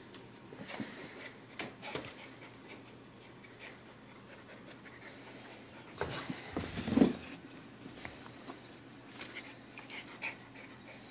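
A puppy and a cat play-fighting on carpet: scattered scuffles and bumps, loudest in a tussle about six to seven seconds in, with the puppy panting.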